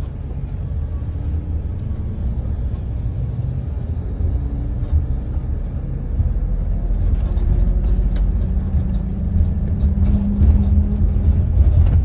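Steady low rumble of a moving road vehicle and the city traffic around it, heard from inside the vehicle. It grows louder about halfway through.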